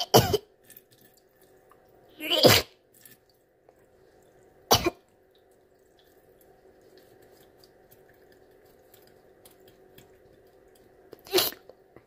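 A girl making four short retching, cough-like noises in play, acting out the doll throwing up.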